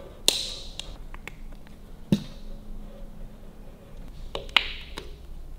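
Hand wire stripper snapping shut on a wire as it strips the insulation: three sharp clicks about two seconds apart, the first and last followed by a short rasp.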